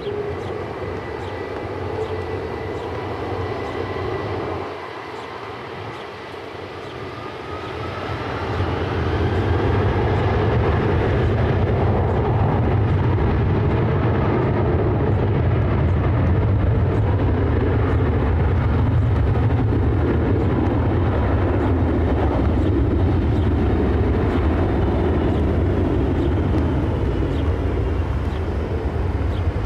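Twin-engine widebody jet airliner's turbofans spooling up to takeoff power: a rising whine and growing jet noise about eight seconds in, then loud steady jet noise as the takeoff roll begins.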